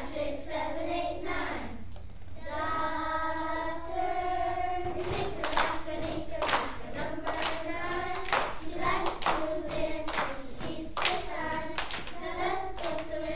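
Children's choir singing together in unison. From about five seconds in, hand claps keep a steady beat, about two a second.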